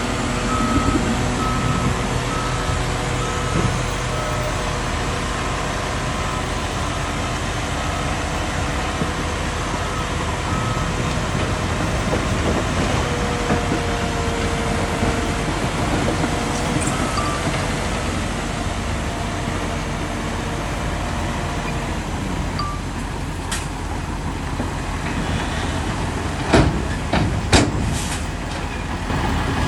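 Heavy diesel earthmoving machinery running steadily under load, with a reversing alarm beeping about once a second for the first ten seconds or so. A few sharp, loud metallic bangs come near the end.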